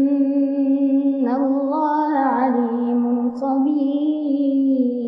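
A young girl's voice chanting a Quran recitation in the melodic tajweed style, holding long drawn-out notes, with a wavering rising flourish about a second in before settling back to a steady held tone.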